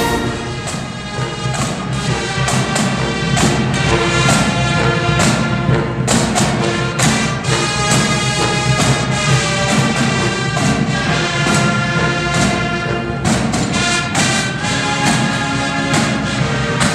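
Band music with brass and a regular drum beat, playing on without a break.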